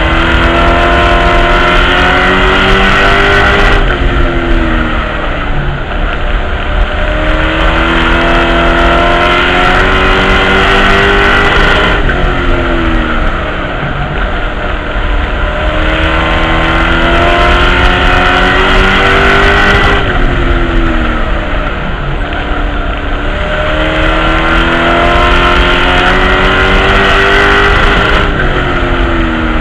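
Race truck engine heard from inside the cockpit, lapping a short oval: it revs up in pitch along each straight, then drops as the driver lifts for each turn, about every eight seconds.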